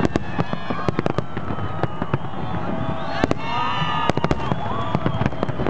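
Aerial fireworks shells bursting in quick succession: a dense run of sharp bangs and crackles, with louder reports about three and four seconds in.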